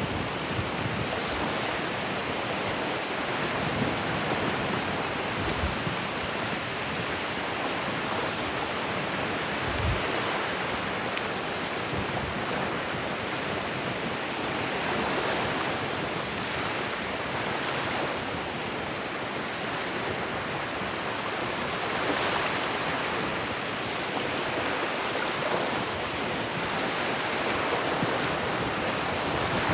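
Ocean surf washing steadily onto a beach, an even rushing noise, with a few brief low thumps.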